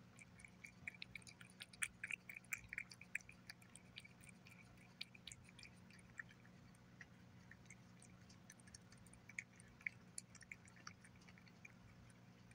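Cat eating wet chicken pâté: soft, wet smacking and licking clicks of chewing and lapping, quick and busy for the first few seconds, sparser after, with another flurry about ten seconds in.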